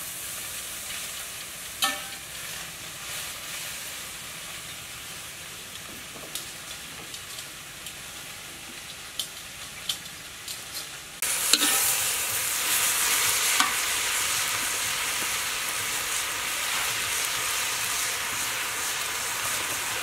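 Vegetables stir-frying in a wok over a wood fire: a steady sizzle with occasional sharp clicks of the spatula against the pan. About halfway through the sizzle jumps suddenly louder and stays so.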